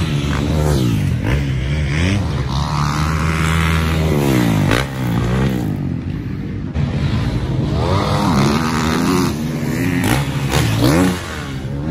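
Several dirt bikes running on a motocross track, their engines revving up and dropping off over and over, with more than one engine heard at once.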